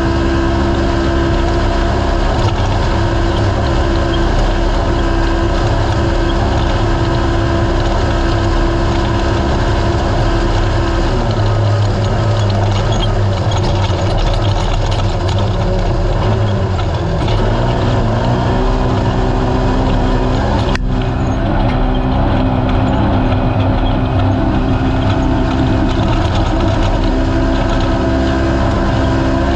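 Naturally aspirated race UTV's engine running hard at steady revs under race load. Its note drops and wavers about a third of the way in, then climbs back to a steady pitch, and there is one sharp knock about two-thirds of the way through.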